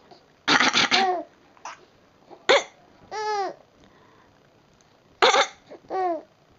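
A person coughs three times, about half a second, two and a half seconds and five seconds in. After each cough a baby answers with a short, high laughing squeal that rises and falls in pitch.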